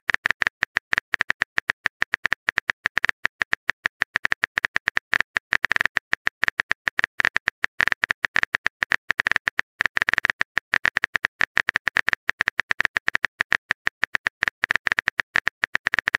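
Smartphone on-screen keyboard typing clicks: a rapid, uneven stream of short taps, many per second, as text is typed out.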